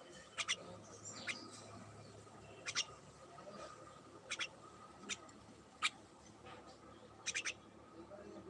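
A bird giving short, sharp chip calls, about seven in all and several of them in quick doubles, at irregular intervals over a faint steady hum.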